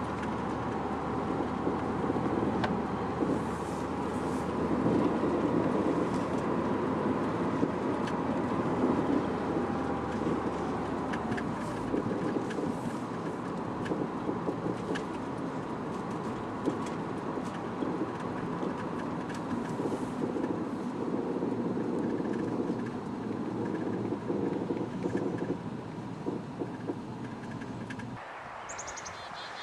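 Steady engine and road noise heard inside the cabin of a Mini towing an Airstream travel trailer; the low engine hum drops about twelve seconds in. Near the end the sound cuts to birdsong outdoors.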